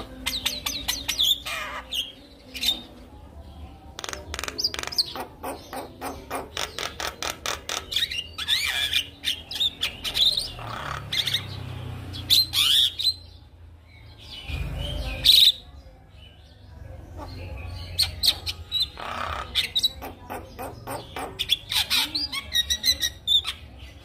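Javan myna singing a long, varied song: rapid clicking rattles and chatter mixed with whistled notes, in quick runs with short pauses.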